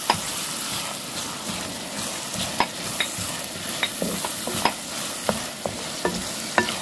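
Chopped onions, chillies and curry leaves sizzling in oil in a clay pot, with a steady hiss and irregular sharp clicks as a wooden spatula stirs them. The cook puts the pot's crackling and bubbling down to the clay pot having been soaked in water first.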